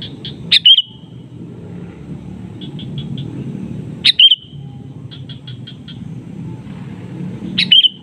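Male sooty-headed bulbul (kutilang) calling: a quick run of short chattering notes leads into a loud, sharp note that sweeps down in pitch. The phrase repeats three times, about every three and a half seconds, as a call to challenge rival birds. A low steady rumble runs underneath.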